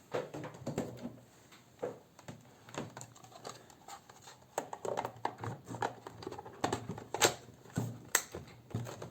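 Plastic laptop battery case being handled and pressed back together, with irregular clicks and light knocks, a few sharper snaps in the second half.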